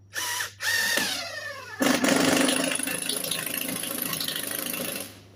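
Cordless power driver driving a screw through siding: two short spins, then a louder steady run of about three seconds that stops suddenly.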